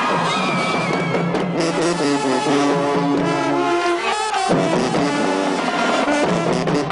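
High school marching band playing, with brass and drums.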